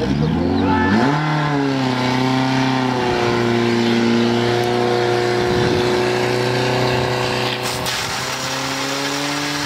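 Portable fire pump's engine revving up over the first second, then running steadily at high speed, dipping slightly about eight seconds in.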